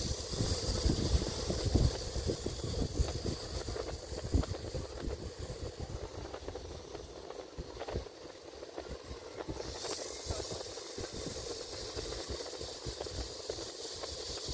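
Wind buffeting the microphone in uneven gusts, strongest in the first couple of seconds, over a steady high hiss that fades about a second in and comes back about ten seconds in.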